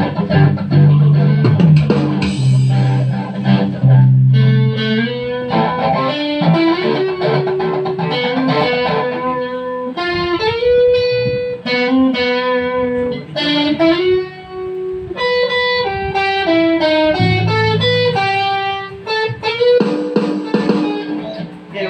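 Guitars played live together: an electric bass holds low notes while a guitar picks out a single-note melody from about four seconds in.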